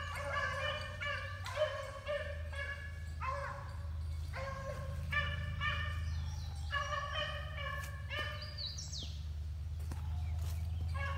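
Several beagles baying on a rabbit's scent, their repeated calls overlapping at different pitches, some short and some drawn out.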